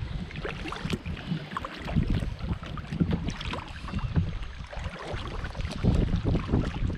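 Water splashing and lapping around a kayak on a river, with irregular knocks and wind rumbling on the microphone.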